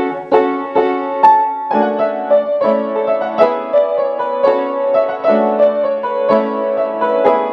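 Piano music with notes struck at a steady pace, about two a second.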